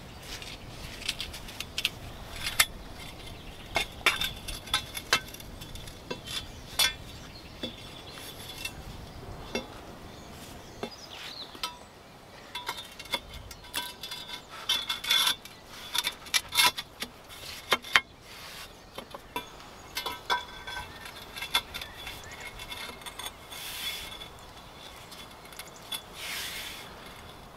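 Irregular clinks and knocks of flat steel bars being set down onto concrete blocks and bricks, some with a short metallic ring.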